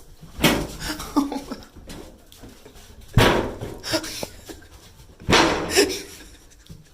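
A dog vocalizing in a few loud, short bursts: one about half a second in, another just after three seconds, and a longer one past five seconds.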